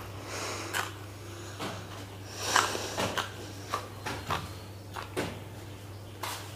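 A man sucking air in sharp hisses through bared, clenched teeth, a string of short breaths with the loudest about two and a half seconds in, from the burning heat of a chilli he has just eaten. A steady low hum runs underneath.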